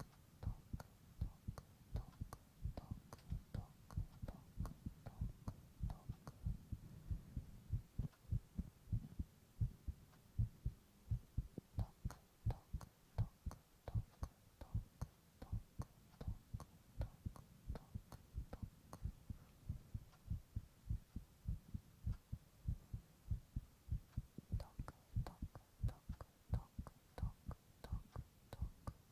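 A person's heartbeat recorded close up: a steady, even run of low, soft thumps.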